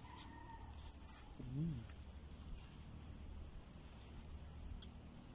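Crickets or similar insects trilling steadily in the background as a high, faintly pulsing chirr. About a second and a half in, there is a short rising-and-falling voiced hum.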